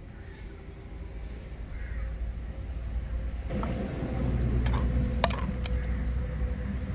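Low wind rumble on the microphone, building from about a second in and strong through the second half, as rain sets in. A few sharp clinks of a steel ladle against the clay pot sound in the second half.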